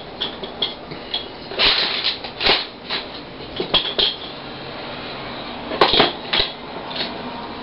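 Irregular light clicks and clatters of tools being handled during soldering work, with the loudest knock about six seconds in.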